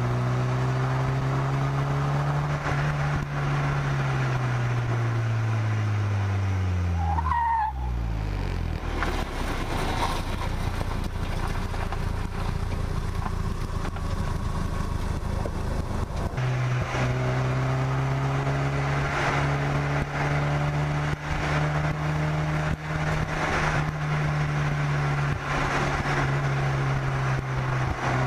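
Car engine with heavy wind rumble on the hood-mounted microphone: the revs fall steadily as the car slows to a stop, with a short squeal about seven seconds in. For about eight seconds only a low rumble is heard, then the engine note comes back about sixteen seconds in and holds at steady revs as it drives on.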